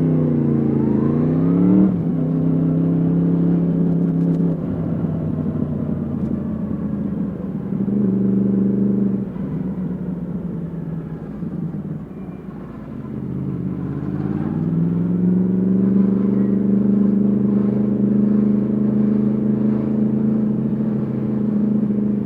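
Yamaha MT-10 SP's crossplane inline-four through an Akrapovic exhaust, heard onboard while riding. The revs climb and drop as it shifts up in the first couple of seconds, with a short burst of throttle about eight seconds in. The engine then eases off, climbs again, and holds a steady pitch for the last several seconds.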